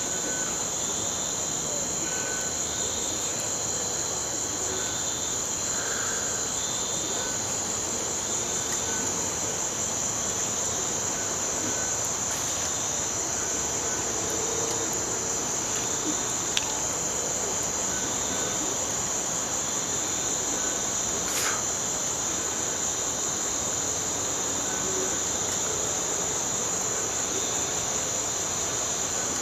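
Night insects: a steady, high-pitched cricket chorus, with a softer, lower chirping that comes and goes.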